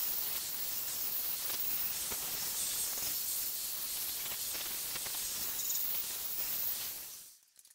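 Cordless angle grinder with a rubberized polishing disc polishing the hardened steel face of a hammerhead: a steady, high rushing noise that dies away and stops about seven seconds in.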